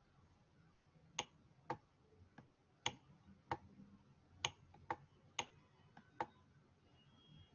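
About nine sharp, faint clicks at an uneven pace over some five seconds, from a computer being operated by hand.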